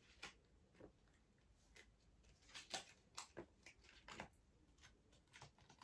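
Faint, scattered clicks and light rustles of small picture cards being pulled out of a pouch and handled.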